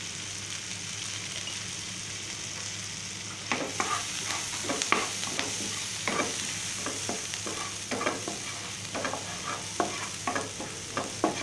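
Chopped green chillies and garlic sizzling in mustard oil in a nonstick frying pan, a steady hiss. From about three and a half seconds in, a wooden spatula stirs the mix, with quick repeated scrapes and taps against the pan.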